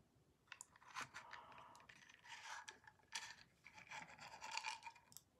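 Very faint crunching and scraping of hard tablet candies being eaten off a wooden spoon, scattered small clicks with a scratchy grinding that is a little stronger near the end.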